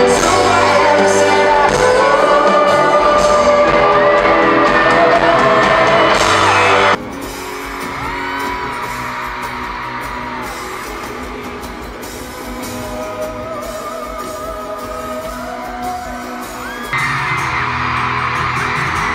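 Live arena recording of a male pop singer singing high falsetto notes over acoustic guitar, with the audience whooping and screaming. The sound changes abruptly about 7 seconds in and again near the end, where separate concert clips are cut together.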